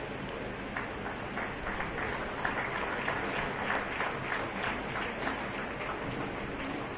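Audience applauding: scattered claps that fill out into a fuller round in the middle and thin out again near the end.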